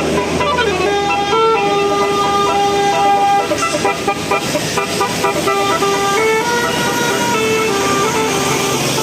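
Bus telolet horn of the Basuri kind, playing a tune of held notes that step between a few pitches, over engine and traffic noise.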